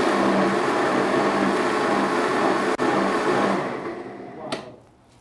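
Electric blender running, blending white carrot with ginger, garlic and water; it is switched off about three and a half seconds in and its motor winds down, with a sharp click near the end.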